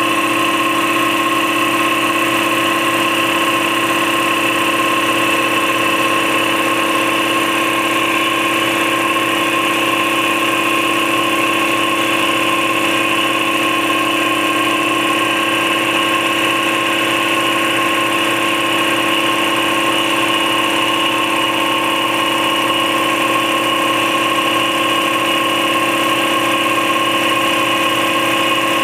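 Campbell Hausfeld 60-gallon twin-piston air compressor with a 3.2 hp 240-volt motor running steadily, pumping its tank back up after cutting back in, on the way to its 135 psi shutoff.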